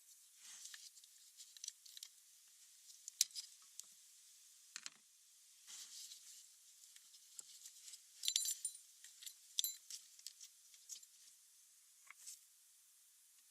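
Small metal tools and parts being handled: scattered light clicks, clinks and scrapes, with a cluster of sharper metallic clinks about eight to ten seconds in.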